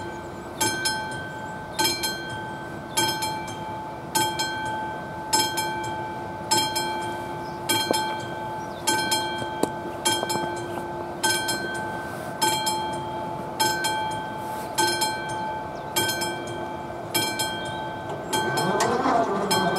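Level-crossing warning bell, the classic electromechanical bell of an AŽD 71 signal, striking about once every second with each stroke ringing on. Near the end an electric hum rises in pitch and settles steady as the barrier drive starts to lower the boom.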